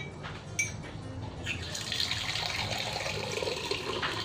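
Two light clinks, then water pouring for about two and a half seconds, stopping near the end.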